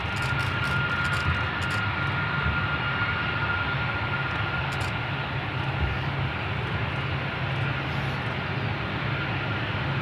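Boeing C-135FR tanker's four CFM56 turbofan engines running at low thrust as it taxis: a steady jet rumble with a high whine that fades about halfway through.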